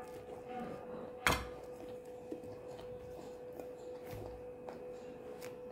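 Quiet table sounds of orange peel and fruit being handled on a plate: a sharp click about a second in, then a few faint taps and a soft thump, over a steady hum.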